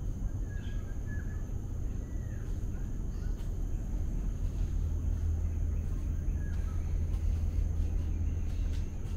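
Outdoor ambience: a low steady rumble that grows louder about halfway through, a constant high tone, and a few short bird chirps.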